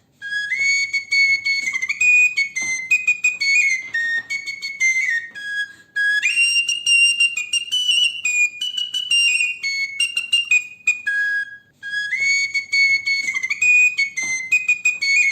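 Intro music: a high-pitched melody on a whistle-like wind instrument, played in three phrases with short breaks between them. The middle phrase is pitched higher than the other two.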